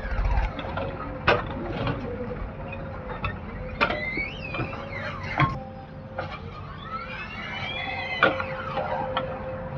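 Backhoe loader working: its engine runs steadily while the hydraulics whine, rising and falling several times, with a few sharp knocks.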